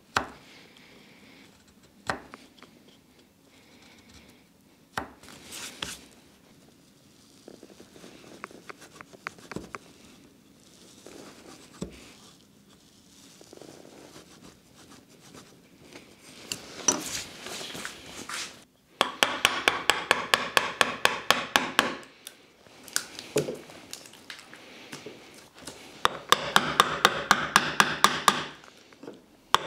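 A wood chisel is struck into a wooden workbench top to chop out a mortise, setting its walls with light taps. A few separate knocks come first, then quick runs of even taps, about five a second, about two-thirds of the way in and again near the end.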